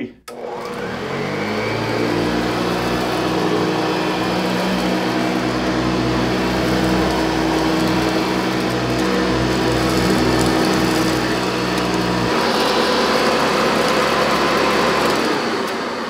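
Metal-based Hoover Convertible upright vacuum switched on with a click, its motor rising to speed over a couple of seconds, then running steadily with its beater brush going over low-pile carpet. About twelve seconds in the low hum drops away and the hiss turns brighter, and the sound begins to fade near the end.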